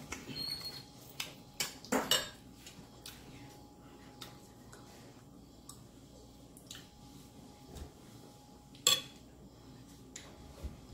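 Quiet eating sounds with a few sharp clicks of a fork against a ceramic dinner plate, the loudest about two seconds in and again near the end.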